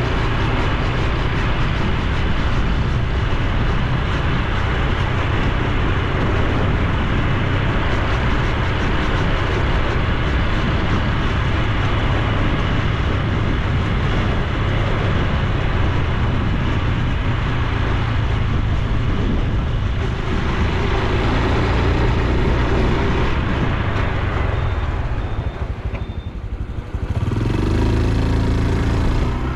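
Honda Super Cub C125's 125 cc single-cylinder engine and exhaust running under way, mixed with wind and road noise. It drops away about 26 seconds in and settles to a steady idle near the end.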